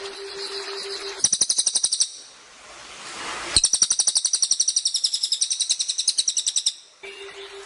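Cililin bird singing two fast, high trills of rapidly repeated notes, a short one about a second in and a longer one of about three seconds. Around them a steady hiss of rushing water with a low steady hum, present at the start and again near the end.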